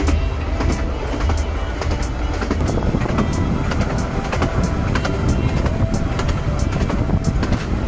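Narrow-gauge passenger train running along the line, heard from the carriage: a steady low rumble with frequent sharp clicks from the wheels on the rails.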